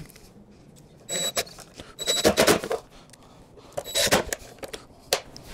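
Metal latch hardware on a plywood box being worked by hand: three short runs of sharp clicks and knocks, some with a brief high metallic ring, and a single click near the end.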